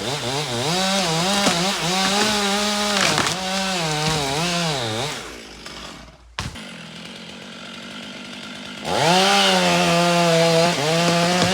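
Chainsaw running at high revs, its pitch dipping and recovering again and again as it cuts into wood. Around five seconds in it drops away to a quieter stretch with a single sharp knock, then revs back up about nine seconds in.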